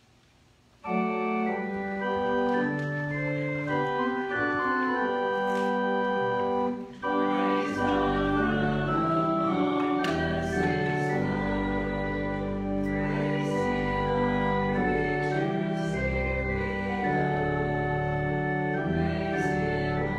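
Church organ playing sustained chords, starting about a second in; after a brief break near the middle, a deep pedal bass joins the chords.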